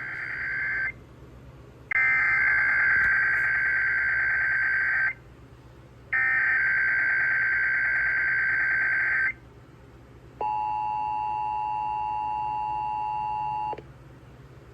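Emergency Alert System SAME header: three bursts of warbling digital data tones, the first cut short and the next two lasting about three seconds each, with about a second's gap between them. These are followed by the EAS two-tone attention signal (853 and 960 Hz), a steady harsh dual tone held for about three seconds, that announces a Required Weekly Test.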